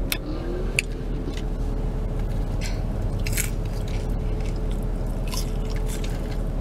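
Someone eating french fries close to the microphone: scattered bites and crunchy chewing, over a steady low rumble with a faint steady hum.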